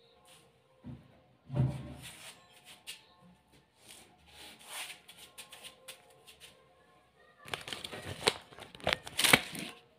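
Handling noise: scattered rustles and light clicks, a thump about a second and a half in, then a dense stretch of close rustling and clicking near the end as the camera is picked up and moved. The sprayer itself is not running.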